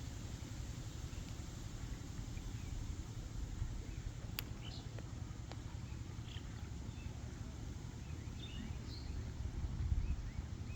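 A few faint, short bird chirps over a steady low rumble, with one sharp click about four seconds in.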